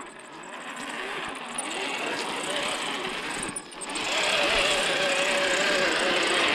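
Electric motor and geartrain of a Carisma SCA-1E radio-controlled scale crawler whining, the pitch wavering up and down with the throttle. About four seconds in it gets louder and holds a steadier whine.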